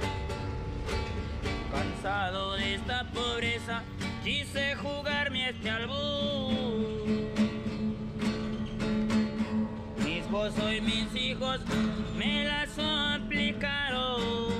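Acoustic guitar played with a man singing a song over it, the voice wavering with vibrato.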